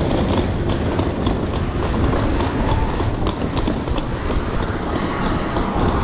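Wheels of a hard-shell rolling suitcase running over paving slabs: a steady loud rumble with a clack at regular intervals as the wheels cross the joints.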